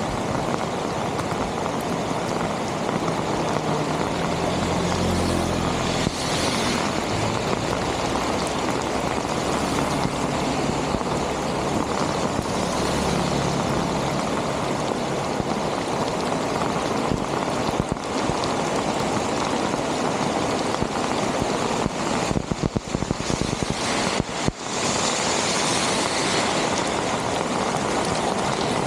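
Steady rushing of rainwater and runoff, with a few brief dips about three-quarters of the way through.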